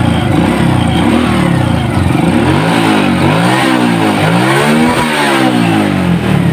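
Honda Supra X single-cylinder four-stroke engine running after a cam chain replacement, blipped on the throttle so that its pitch rises and falls about four times in the second half. The new cam chain runs smoothly, with a slight tick that the mechanic puts down to valve clearance still needing adjustment.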